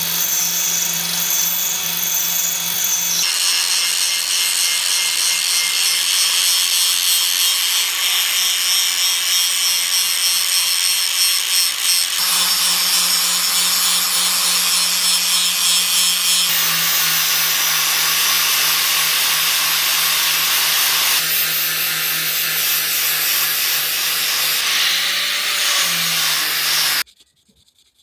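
A power tool grinding: a steady motor hum under a dense, loud rasp, in several cut-together takes. It cuts off suddenly about a second before the end.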